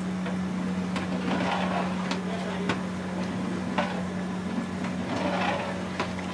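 Long metal ladle stirring gravy in a large aluminium cooking pot, giving a few sharp knocks against the pot at irregular intervals, over a steady low hum.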